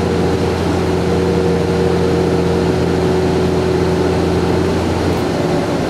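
Interior of a moving transit bus: steady engine drone with a low hum under road and cabin noise, the low hum easing off about five seconds in.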